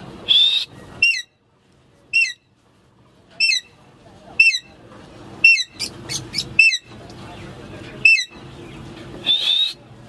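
Alexandrine parakeet calling: a string of short, sharp calls, roughly one a second and sometimes in quick pairs, with a longer, harsher call near the end.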